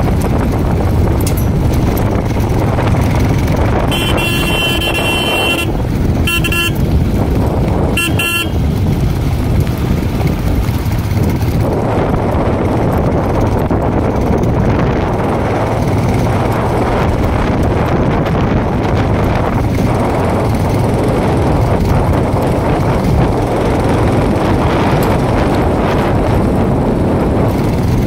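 Royal Enfield Himalayan single-cylinder motorcycle engine running under way, with wind rushing over the microphone. A horn sounds three times, one long honk about four seconds in, then two short toots.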